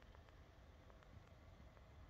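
Near silence: faint low background rumble.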